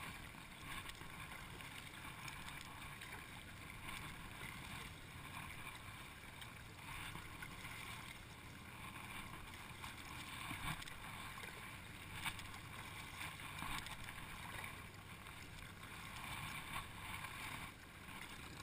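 Double-bladed kayak paddle dipping and splashing in lake water, faint, with the loudness swelling and easing stroke by stroke and a few light clicks from the paddle and the boat.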